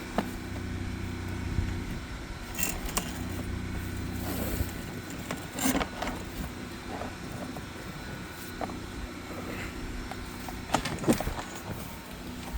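An engine running steadily, with scattered clicks and light rattles over it.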